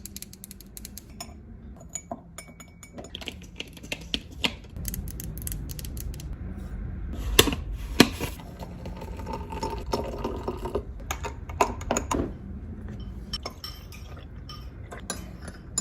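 Kitchen clatter of dishes and cutlery being handled, scattered clinks and knocks over a low room hum, with two louder knocks about half a second apart midway through.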